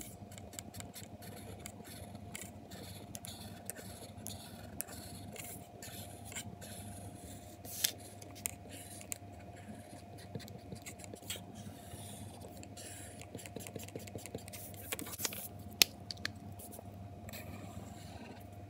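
Felt-tip marker scratching across paper in many short strokes as a space is coloured in, with a few louder clicks of the tip on the paper about eight seconds in and near the end, over a faint steady hum.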